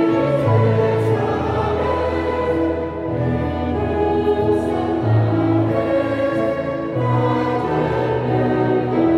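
A choir singing with a string orchestra, in long held chords that change about once a second.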